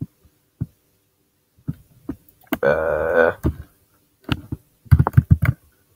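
Computer keyboard keystrokes: a few separate clicks, then a quick run of keystrokes near the end. About halfway through there is a short hum from the typist.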